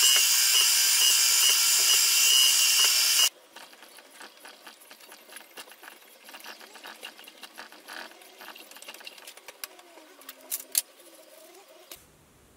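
Milling machine spindle drilling into an aluminium bar, a loud steady whine that stops suddenly about three seconds in. Then a hand tap turned in a tap wrench threads the hole, with faint scraping and small clicks and a couple of sharper ticks near the end.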